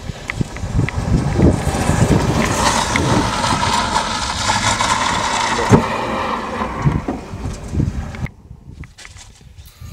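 A car pulling away fast across gravel, its tyres spinning and throwing up gravel, with a rough, noisy rumble. The noise cuts off suddenly about eight seconds in.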